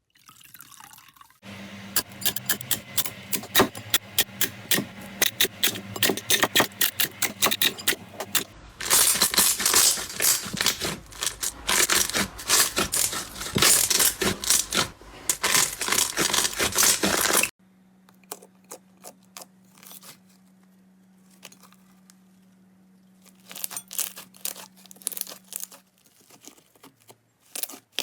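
Slime being squished and pressed by hand, a dense run of wet clicks and pops over a sticky crackle. It comes in several short clips that cut abruptly from one to the next, and is loudest in the middle stretch.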